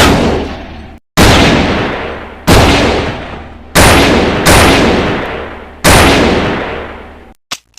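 .357 Magnum revolver firing six shots, each loud report followed by a long echoing tail, spaced about a second or more apart with two coming closer together midway. A faint click follows near the end.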